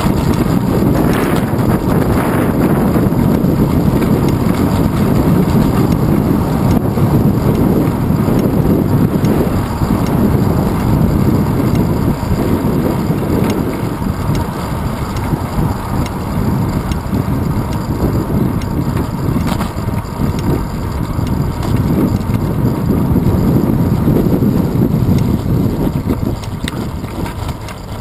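Wind buffeting the microphone of a handlebar-mounted GoPro Hero 2 on a moving bicycle: a steady, loud, low rumble of rushing air with road noise under it.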